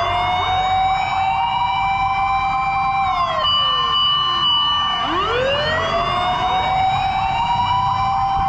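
Several emergency sirens wailing together, slightly out of step. Each tone climbs slowly, holds high for a few seconds and then drops, with a new rise about halfway through.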